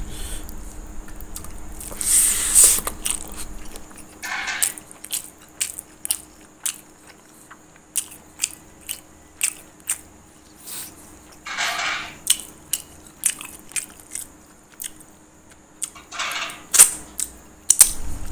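Close-up chewing of a handful of rice and fish: irregular wet mouth clicks and lip smacks, with a few short hissing breaths in between.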